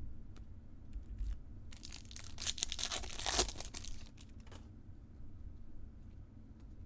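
A foil trading-card pack wrapper being torn open and crinkled for about three seconds, starting near two seconds in, with a few light clicks of card handling around it.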